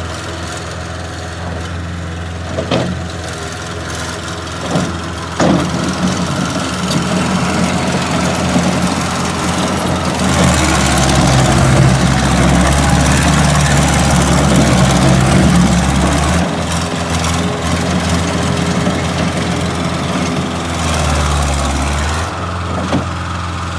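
Bobcat 763 skid steer's diesel engine running, with a few sharp knocks in the first six seconds. About ten seconds in it picks up and runs louder for around six seconds, then settles back, rising once more briefly near the end.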